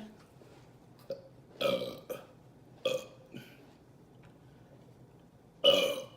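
A woman burping several times: a longer burp about one and a half seconds in, a short one about three seconds in, and the loudest, about half a second long, near the end.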